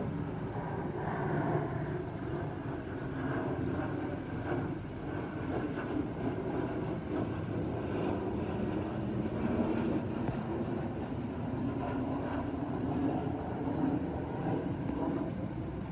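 Boeing 737-800 airliner with twin CFM56-7B turbofans passing overhead on its departure climb: a steady, wavering rumble of jet noise at a fairly even level.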